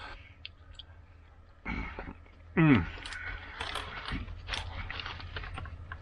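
Aluminium foil crinkling and a fork clicking and scraping in baked acorn squash, with a short falling 'mm' from the eater about two and a half seconds in.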